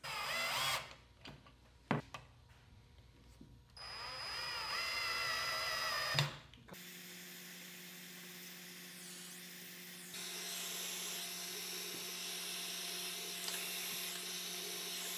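Cordless drill driving screws in two short whining runs, the second about four seconds in. Then a steady hiss with a low hum from a small butane torch flame held on a subwoofer's terminal for soldering, a little louder from about ten seconds in.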